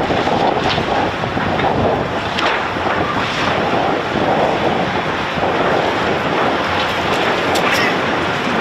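Heavy construction machinery at work: a loud, steady rushing noise with a few scattered knocks.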